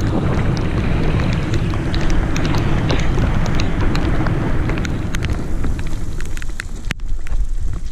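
Wind buffeting the microphone of a camera on a mountain bike descending fast on wet asphalt, with tyre rumble and scattered sharp clicks and rattles. The wind noise eases about five seconds in.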